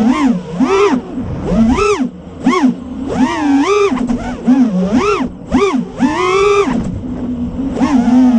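Brushless motors of a 5-inch FPV racing quadcopter (T-Motor F40 Pro IV 2400KV) whining as the throttle is punched and dropped again and again. The pitch swoops up and back down about ten times, then holds steadier near the end.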